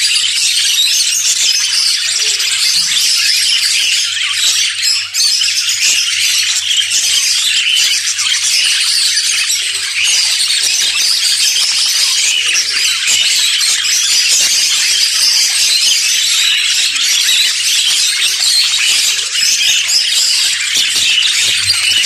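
A flock of budgerigars chattering and warbling nonstop, many high chirps overlapping.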